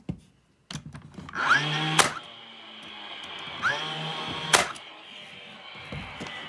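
DeWalt XR cordless brad nailer firing twice, about two and a half seconds apart, driving brads into the legs of a small pine picnic table. Each shot is a short rising whine from the nailer winding up, then a sharp snap as it fires.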